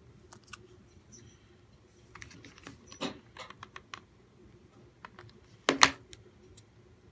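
A hot glue gun and a small paper piece handled on a tabletop: scattered light clicks and rustles, then a sharp knock near the end, the loudest sound, as the glue gun is put down on the table.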